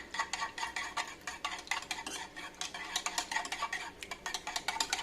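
Beaten egg mixture with chopped vegetables being stirred briskly in a bowl: rapid, irregular clicks of the utensil against the bowl.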